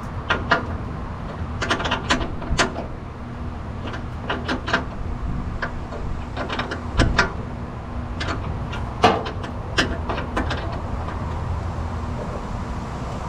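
Scattered clicks and knocks of hand tools on metal, some in quick little groups, as the cooling system's drain plug and hose clamps are tightened, over a steady low hum.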